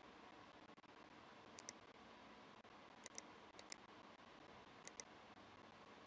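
Faint, sharp clicks in quick pairs, four pairs spaced about a second or more apart, over near-silent room tone.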